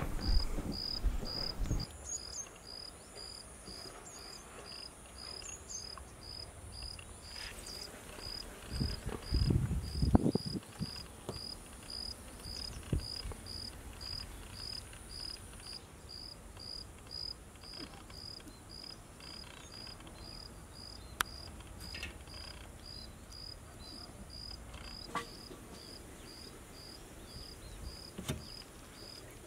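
An insect chirping steadily, short high chirps at an even pace of about two a second. Soft rustles and knocks come from chicken pieces being worked in flour and water, the loudest about nine seconds in.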